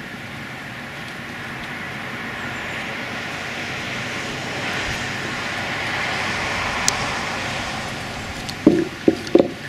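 A road vehicle passing by: tyre and road noise swells up over several seconds, peaks, then fades away. Near the end come a few short knocks.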